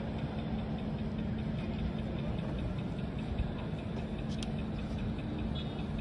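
Steady outdoor city background noise with a low, even hum that fades out about two-thirds of the way through, and one faint click near the end.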